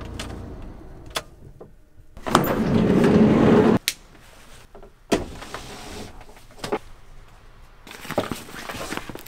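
Volkswagen T5 van being worked from inside: several clunks and knocks, and a loud rattling slide of about a second and a half, a little over two seconds in, that stops suddenly with a knock, as a door or window of the van moves.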